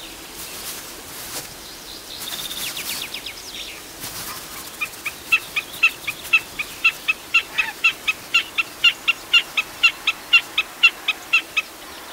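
Common snipe giving its repeated 'tück-a tück-a' ground call: a loud, even series of short, sharp notes at about three a second, beginning about five seconds in. This is the snipe's breeding-season call, which both partners of a pair give.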